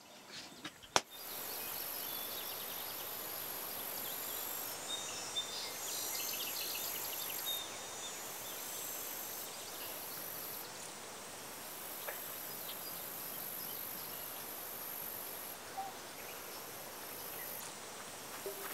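Outdoor rural ambience: a steady hiss with insects buzzing high-pitched, starting and stopping in stretches of a few seconds. A sharp click about a second in.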